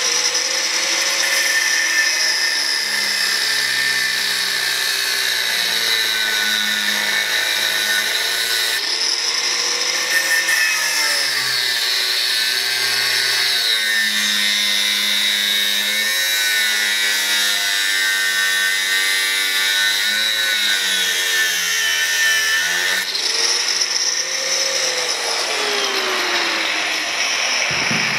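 Angle grinder with a cutting disc running continuously, cutting through a steel spacer ring and bearing race on a front wheel hub. Its whine sags and recovers in pitch several times as the disc is pressed into the cut.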